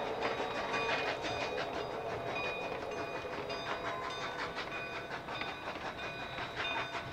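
Narrow-gauge K36 2-8-2 steam locomotive pulling its train, the stack exhaust beating in a quick regular rhythm over the rumble of the train. A whistle tone dies away right at the start.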